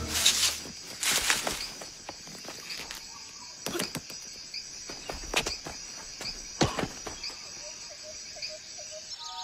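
Forest ambience of crickets chirping steadily, with a handful of soft, irregular footsteps.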